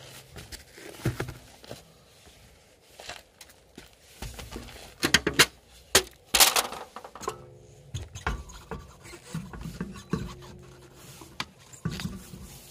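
Car wheels being handled by hand: knocks, scrapes and metallic clinks as an alloy wheel is pulled off the hub and a steel wheel on a studless winter tyre is lifted onto the wheel studs. The loudest knocks come in a cluster about halfway through, with short ringing clinks of metal after them.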